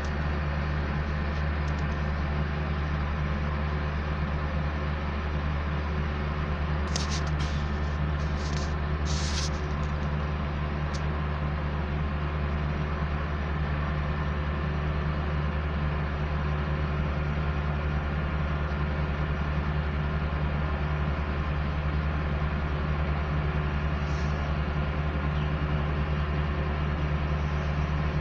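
Engine of heavy road-works machinery running steadily at constant speed with a deep, even hum. A few short high clicks or scrapes come about seven to ten seconds in.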